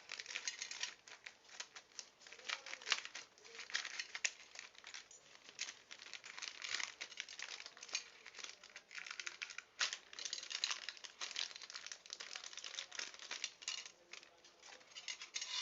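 Packaging being crinkled and rattled as the parts of a soldering iron kit are handled, with irregular crackling and small clicks on and off throughout.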